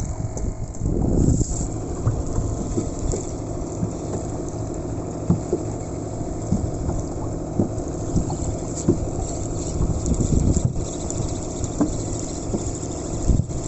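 Boat engine running steadily under way, with wind buffeting the microphone and a few scattered knocks.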